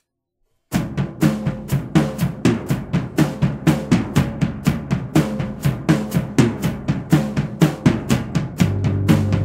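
Opening of a band's recorded song: after a brief silence a drum kit comes in with a busy, fast beat of snare and bass drum hits. Near the end low held notes join under the drums.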